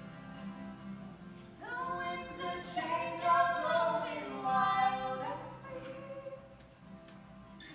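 Live acoustic duet: a man and a woman singing together over a strummed acoustic guitar. The guitar plays softly at first; the voices come in about a second and a half in with long held, bending notes, swell through the middle and ease off after about five seconds.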